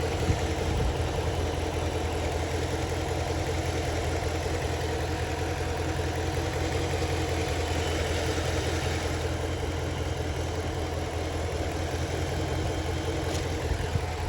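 Dodge Charger R/T's 5.7-litre HEMI V8 idling steadily.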